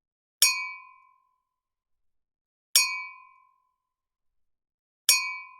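Wine glasses clinked together three times, evenly about two seconds apart; each clink is a sharp strike with a clear, bell-like ring that fades within a second.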